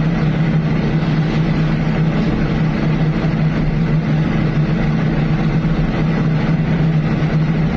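Diesel engine of an amphibious pontoon excavator running steadily: a constant low engine hum with mechanical noise over it, holding the same pitch throughout.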